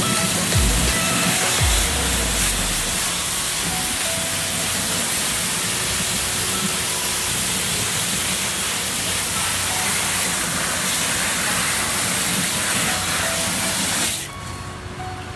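Water spraying in a steady hiss, which stops abruptly about fourteen seconds in, with background music underneath.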